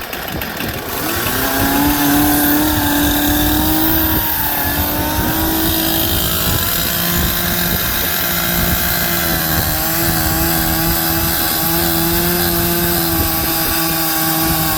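Gas chainsaw revving up about a second in and running at full throttle as it cuts off the end of a log. Its speed dips briefly near four seconds, then holds high and steady.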